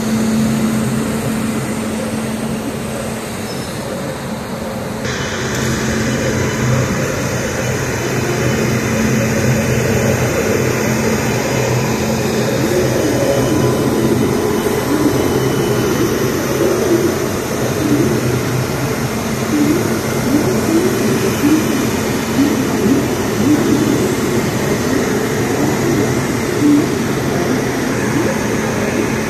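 Indian electric locomotive running slowly up to its coaches, with a steady electrical hum from its motors and blowers. Short squeaks repeat through the second half, typical of wheels on the rails at low speed.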